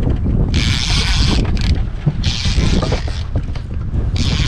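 Wind buffeting the microphone aboard a fishing boat at sea: a constant low rumble, with three bursts of hiss about half a second, two seconds and four seconds in.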